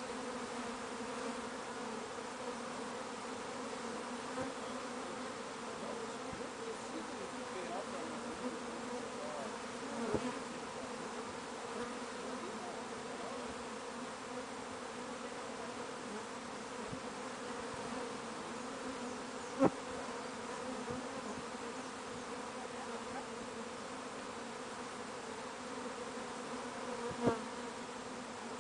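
Steady, dense buzzing hum of a huge Apis mellifera honeybee swarm in flight as it settles onto and moves into a wooden hive box. Three brief ticks stand out over the hum, the sharpest about two-thirds through.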